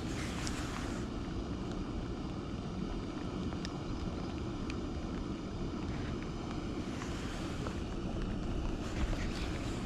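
Steady low rumble of wind buffeting the microphone, with a few brief hissing swells.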